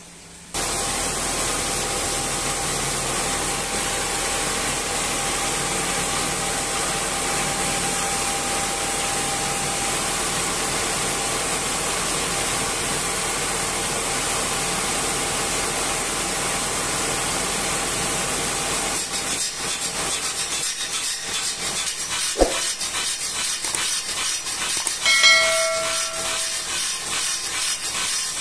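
Water-cooled circular saw blades of a stone profiling machine cutting a stone fence post: a loud, steady hissing grind of blade and water spray that starts abruptly about half a second in. Past the two-thirds mark it turns rougher and more uneven, with two sharp knocks and a brief ringing tone.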